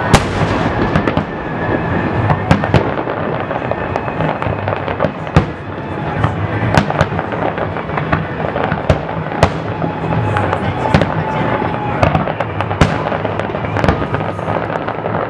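Aerial fireworks display: shells bursting one after another, many sharp bangs with crackling between them.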